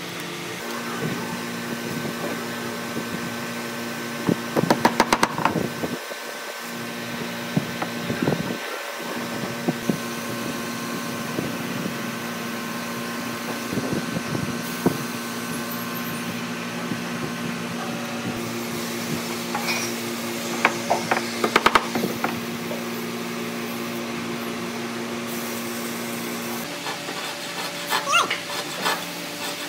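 Workshop ambience: a steady hum runs under scattered clicks and taps from handling a tape measure and metal ruler while marking out a pine board. Near the end a thin saw blade starts cutting the wood, giving a rapid rasping.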